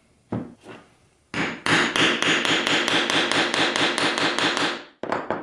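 Claw hammer rapidly striking a steel hollow punch, about six blows a second for some three and a half seconds, to cut the 9/16-inch outer edge of a gasket from sheet on a wooden board. A couple of single taps come before the run and a couple after it.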